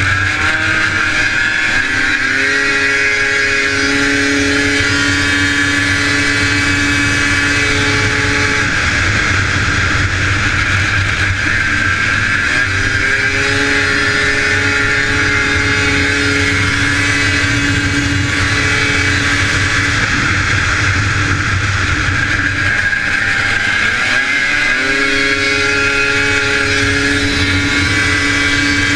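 John Deere 440 Superstock racing snowmobile's two-stroke engine running at high revs. The pitch dips and climbs back three times as the sled eases off for the turns and accelerates out.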